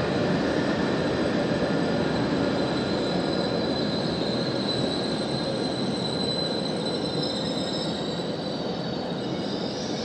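E7 series Shinkansen train running at low speed, with thin high squealing tones from wheels and brakes over a steady rumble. The sound eases off slightly toward the end.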